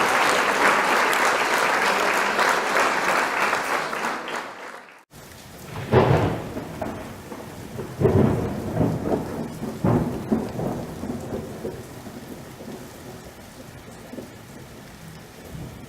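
Sound-effect clips: applause-like clapping fades out over the first five seconds. After a short break comes a thunderstorm effect, steady rain with thunder rumbling about three times, about two seconds apart, then slowly dying away.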